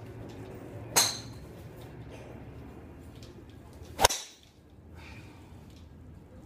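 Two sharp golf club strikes on a ball, about three seconds apart. The first, about a second in, has a short metallic ring. The second, about four seconds in, is the louder one.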